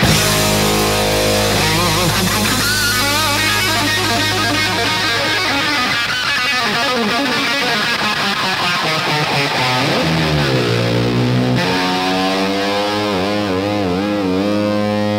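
Background rock music led by distorted electric guitar, with long held notes that waver and bend.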